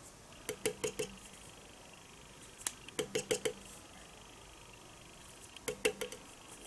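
Three quick runs of four or five light, sharp metallic taps, each run lasting under a second and the runs a few seconds apart. Each tap has a short ringing note.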